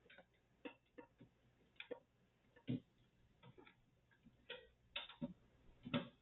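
Irregular clicks and knocks of a graphics card being handled against a computer case and its PCIe slot while it is worked into place, with the loudest knocks about three seconds in and near the end.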